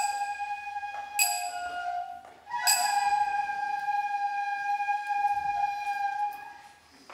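Japanese bamboo flute playing slow, long-held notes as lion-dance accompaniment, punctuated by three sharp percussive strikes about a second and a half apart. The flute fades out near the end.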